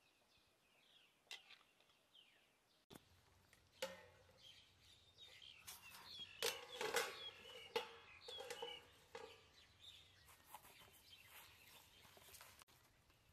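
Faint bird chirps, then metal clanks and scrapes of a spatula and a metal lid on a wok of frying pork, several sharp strikes that ring on briefly, loudest between about 4 and 9 seconds in.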